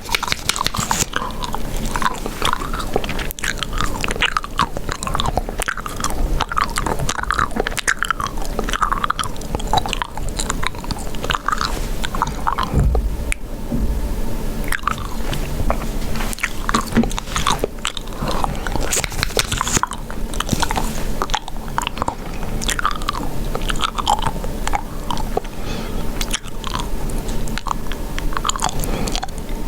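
Chewing gum close to the microphone: a steady stream of wet mouth clicks and smacks.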